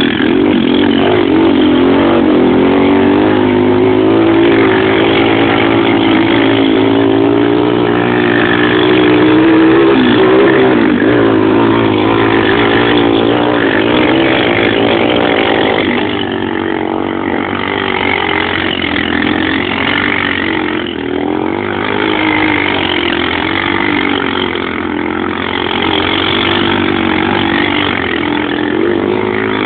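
Bashan quad bike (ATV) engine running under load, its revs rising and falling again and again. It gets a little quieter from about halfway through.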